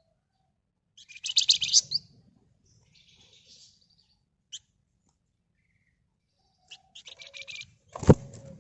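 A caged flamboyan songbird singing in rapid, dense buzzy trills and chattering bursts, two trill phrases with a rasping chatter between them. A sharp knock near the end is the loudest sound.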